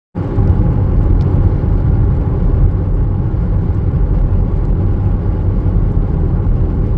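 Steady low rumble of a car in motion, heard from inside, with a faint steady hum.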